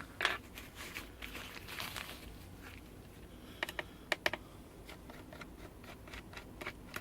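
Light clicks and taps of a screwdriver and small screws being handled on a MacBook Pro's bottom case, with a quick cluster of sharp clicks about halfway through.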